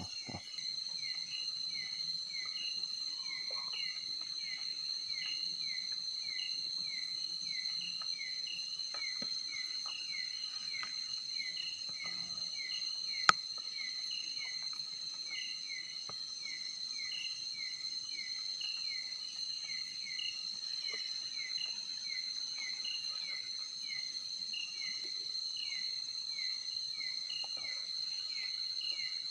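Night insects calling: a steady high-pitched drone, with a falling chirp repeating two or three times a second beneath it. A single sharp click about thirteen seconds in.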